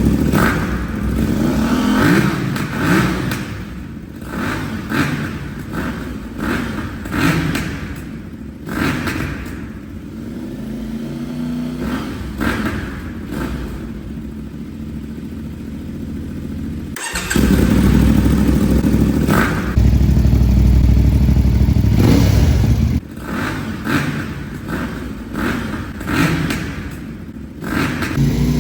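CFMOTO 450MT parallel-twin engine idling and revved in repeated short throttle blips, with a stretch of loud, sustained high revs in the middle. Clips with the stock exhaust and the Roads Italia Tondo aftermarket exhaust are spliced together, so the sound changes abruptly at the cuts.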